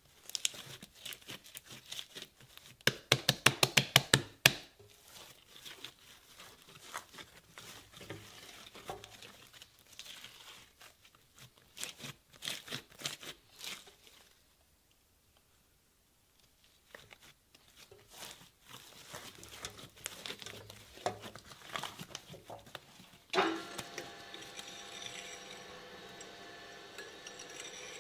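Material being crushed and torn in a shredder: irregular crackling and crunching, with a quick run of loud sharp snaps a few seconds in, then a short pause. Near the end a steady running sound with a held tone sets in under the crunching.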